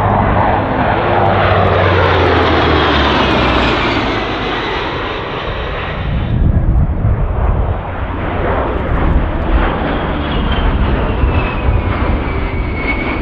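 Heritage-flight formation of two A-10 Thunderbolt II jets and a P-38 Lightning passing overhead: a loud, steady jet roar whose pitch slides down as the aircraft pass. About halfway through it cuts abruptly to another pass, and near the end the A-10s' TF34 turbofans give a high whine that slides down in pitch.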